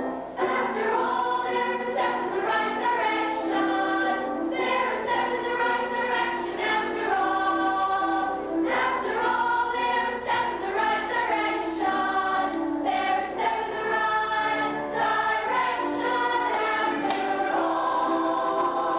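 A chorus of voices singing a stage-musical number together, with held notes that change every second or so.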